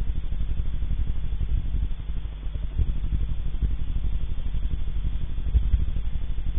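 Steady low rumbling noise with a rapid flutter in it, dipping briefly about two seconds in.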